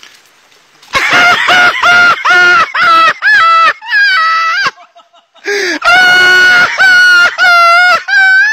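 A person screaming in loud, very high-pitched repeated bursts, two or three a second, starting about a second in and pausing briefly around the middle.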